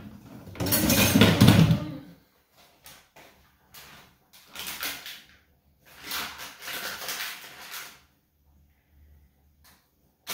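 Knocks and rustling of someone handling things in a kitchen. The loudest spell comes in the first couple of seconds and a second one about six seconds in, with a few small knocks between.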